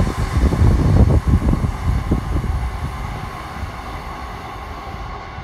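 Rumble and clatter of a Class 66-hauled heavy freight train's loaded wagons running along the track at high speed. It is loud at first, with irregular knocks, and fades steadily as the train draws away.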